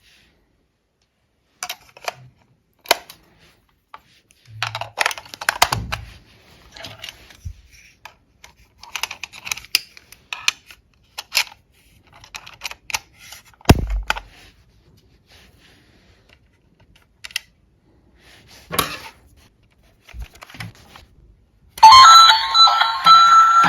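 Scattered clicks, taps and light rustling of a plastic toy and its packaging being handled, with one sharp knock about 14 seconds in. Near the end the battery-powered duck toy switches on and plays a loud electronic tune.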